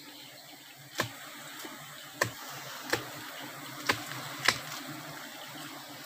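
Steady low hum of a large wild honeybee colony under a hiss, with five sharp clicks spaced unevenly through the middle of it.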